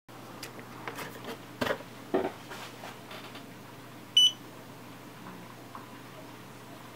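A single short electronic beep from the homemade soldering station's buzzer about four seconds in, the loudest sound, after several clicks and knocks of handling in the first three seconds. A steady low hum runs underneath.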